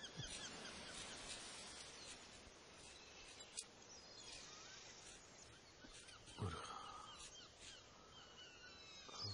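Faint outdoor birdsong: many small birds chirping, with one louder, harsher bird call about six and a half seconds in.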